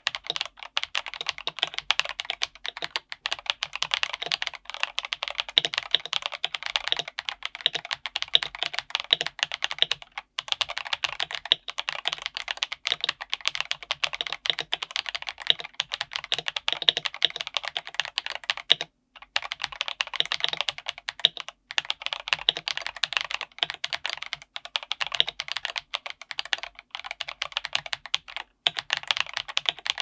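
Continuous typing on an Akko 5075B Plus mechanical keyboard with Akko CS Silver linear switches, PBT double-shot keycaps, a PC plate and a gasket-mounted plastic case: a dense, fast stream of key strikes with a few brief pauses.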